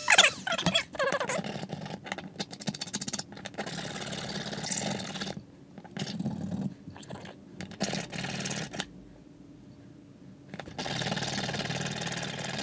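A Dremel 200 rotary tool winding down, its pitch falling for about a second as it is switched off, followed by irregular scraping and rubbing of a small hand tool on the die-cast metal truck cab.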